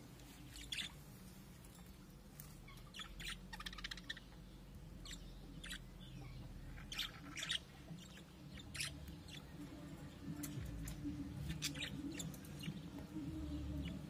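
Pet budgerigars chirping in short, scattered calls, a few every couple of seconds.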